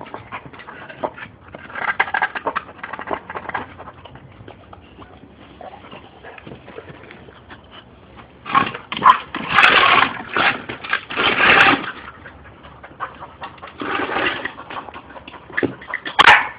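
Boxer dog panting hard in noisy bursts while playing, loudest around the middle.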